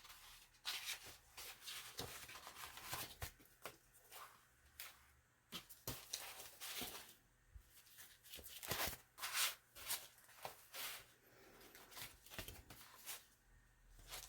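Quiet, intermittent rustling and soft crackles of paper being handled, with a few light taps and rubs.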